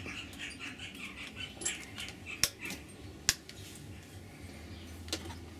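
A few sharp single clicks from the BMW F800GS's left handlebar switches being pressed, over a faint low hum. A run of short high chirps repeats about three times a second in the first second or so.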